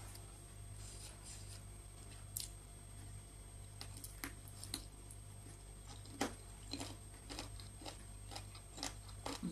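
Eating rice and chicken soup by hand: soft irregular chewing, lip-smack and mouth clicks, over a steady low hum.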